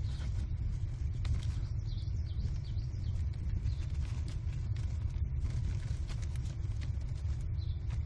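A steady low rumble, with American kestrel nestlings scrabbling and flapping on the wood-chip floor of the nest box: many sharp scratches and taps. A few faint high-pitched calls come through from time to time.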